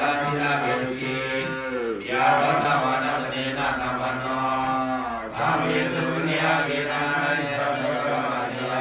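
Chant-like singing in long held phrases, each ending in a falling slide in pitch, with short breaks about two and five seconds in.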